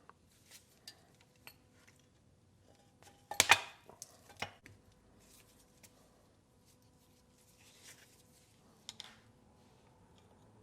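Scattered light metal clicks and clinks of snap ring pliers and a steel snap ring being worked onto a transfer case output shaft, with the loudest cluster about three and a half seconds in and a few fainter clicks later.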